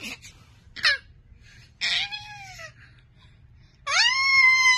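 Toddler's high-pitched squeals of laughter: a short one about a second in, a longer one falling in pitch about two seconds in, and a long held squeal near the end.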